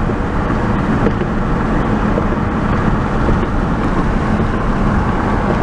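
Steady road and engine noise inside a moving car's cabin, with a low hum.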